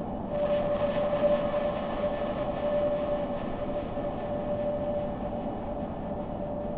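Steady rumbling drone with one held mid-pitched tone, dipping briefly just after the start and again near the end.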